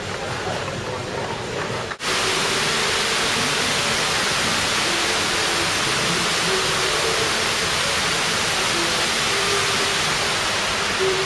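A steady rush of running or falling water that starts abruptly about two seconds in.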